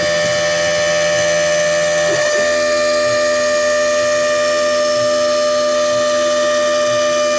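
CNC router spindle milling aluminum: a steady, high-pitched machining whine made of several constant tones. The lower part of the sound shifts pitch about two seconds in, as the cut changes.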